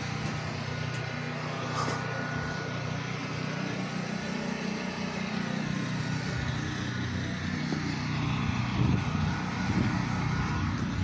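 Pressure washer's engine running at a steady pitch, a constant motor hum, slightly louder near the end.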